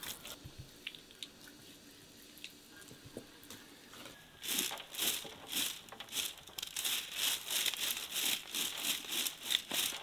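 A twig broom sweeping loose soil in brisk, repeated scraping strokes, about two or three a second, starting about four seconds in.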